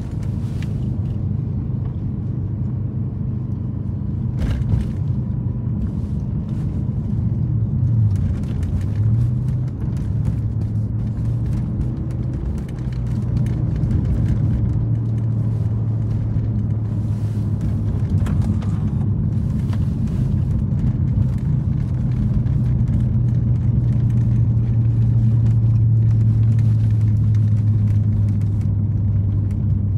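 Toyota Celsior's V8 with an aftermarket Three Cats muffler, heard from inside the cabin while cruising: a steady low exhaust drone over road noise. The pitch wavers about eight to nine seconds in, then the drone holds steady and grows a little louder from about thirteen seconds.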